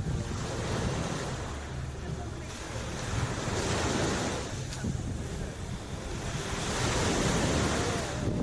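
Sea waves washing onto the shore, the wash swelling about three and a half seconds in and again about seven seconds in. Wind buffets the microphone as a steady low rumble underneath.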